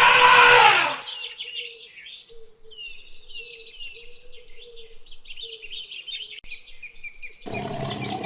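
Many small birds chirping and twittering over a faint steady low note. A loud, falling call cuts off about a second in. A louder, rough animal sound starts near the end.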